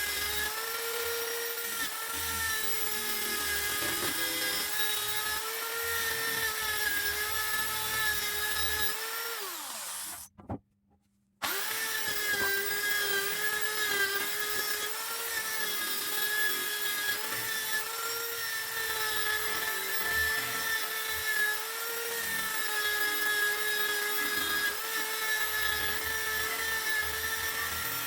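High-speed power tool whining steadily as it works on metal, winding down and stopping about ten seconds in, then running again at full speed after a short silence.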